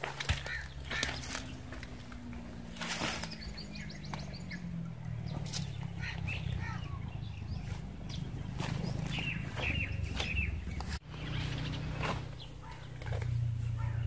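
Water buffalo grazing at close range, tearing and cropping grass in short, sharp rips. Birds call now and then over a steady low hum.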